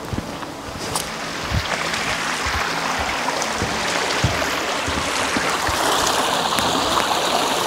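Rushing stream water, a steady wash that grows louder over the first few seconds.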